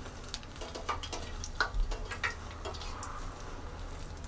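Shrimp cakes deep-frying in hot palm oil in a small steel saucepan: a steady sizzle, with a few sharp clicks as metal tongs turn the cakes against the pan.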